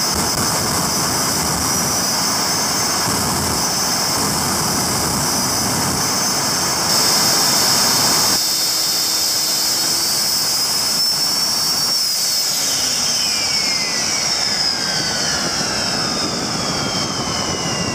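Rolls-Royce Viper 535 turbojet running loud with a strong high whine. About eight seconds in its roar drops sharply as it is throttled back. From about twelve seconds the turbine whine falls steadily in pitch as the engine spools down.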